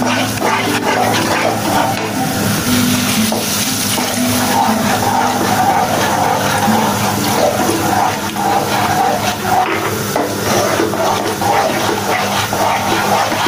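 Flat spatula stirring and scraping a thick flour-and-milk white sauce round a non-stick kadai on a gas stove, over a steady rushing hiss.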